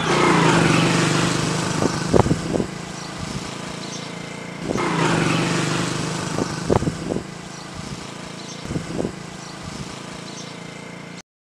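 Motorcycle engine running, swelling twice, then cutting off abruptly near the end.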